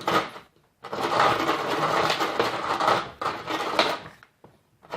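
Snoopy Snow Cone toy machine being turned by hand, its blade grinding and crunching an ice cube with plastic rattling. The grinding breaks off briefly about half a second in and again near the end.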